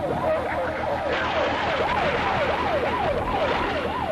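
Police car siren wailing in fast yelp mode, its pitch sweeping up and down about three times a second, over a steady rumble of engine and road noise.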